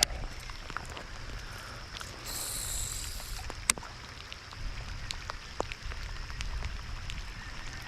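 Light ticking splashes of water over a low wind rumble on the microphone, with a brief hiss lasting about a second a little over two seconds in and a single sharp click just after it.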